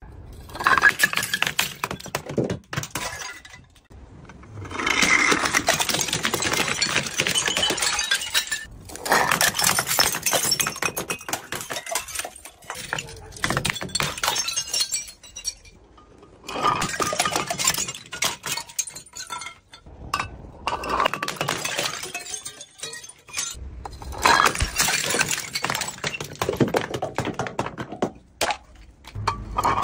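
Glass bottles tumbling down concrete steps and smashing: several separate runs of clattering impacts and shattering glass, a few seconds each, with short gaps between.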